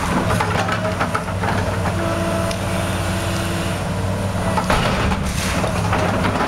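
Tracked excavator's diesel engine running steadily, with a few short knocks, the clearest about five seconds in.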